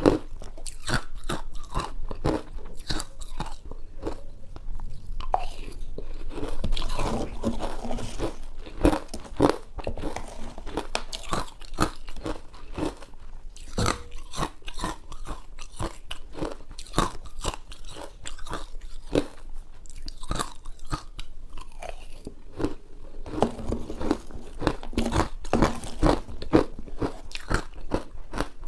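Ice being bitten and chewed close to the microphone: a dense, irregular run of sharp crunches.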